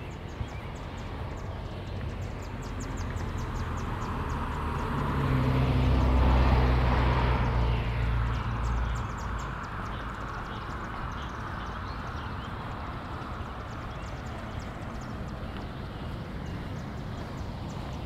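A motor vehicle drives past: its engine hum and tyre rush build over the first few seconds, peak about six seconds in, and fade by about nine seconds, leaving a steady low background hum.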